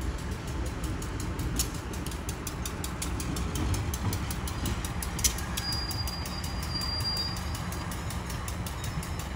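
Diesel locomotive running with a steady low rumble on the rails, with two sharp metallic clicks and a brief high-pitched squeal about six seconds in.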